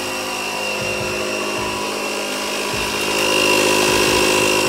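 Kobalt portable air compressor running steadily, pumping air into a tyre stretched onto a steel wheel; it grows louder about three seconds in.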